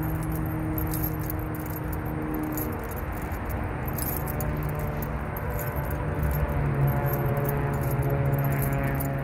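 Continuous jingling rattle over a steady low hum.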